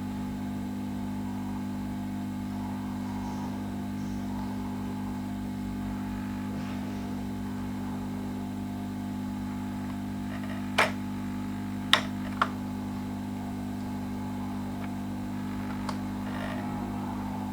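Soldering gun humming steadily while a MOSFET is desoldered from a laptop motherboard, with three sharp clicks of metal tools on the board about two thirds of the way in.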